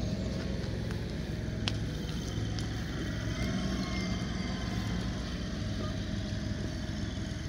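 Steady low rumble of a vehicle engine running, with a single sharp click about 1.7 seconds in.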